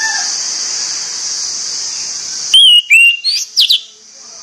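Orange-headed thrush whistling: a few loud, short whistled notes with quick rising and falling glides about two and a half seconds in. Before them is a steady high hiss, and a rooster's crow trails off at the very start.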